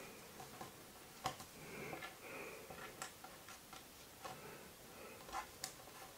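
Faint, sparse clicks and taps of small 3D puzzle pieces being handled and pressed into the puzzle's flat base plate, the clearest click about a second in and two more close together near the end.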